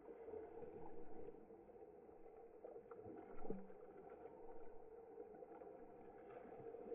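Faint, muffled splashing and lapping of pool water from swimmers doing front crawl close by, with a louder splash about three and a half seconds in.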